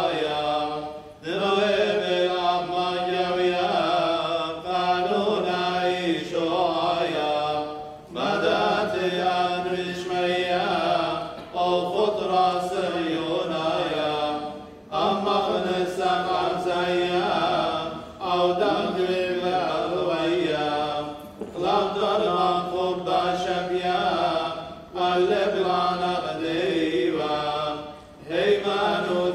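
Clergy chanting the Assyrian Church of the East liturgy unaccompanied, in phrases of about three to four seconds with short breaks between them.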